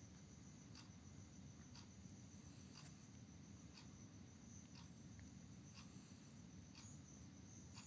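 Near silence: room tone with a low hum and a faint high tone, and faint clicks about once a second.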